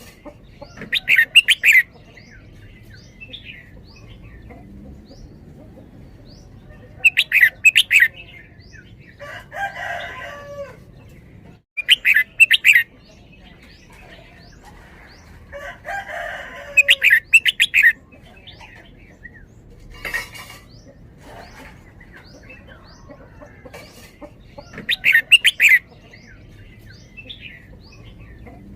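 Red-whiskered bulbul singing its loud, quick song phrases, each about a second long, five times with pauses of several seconds between them.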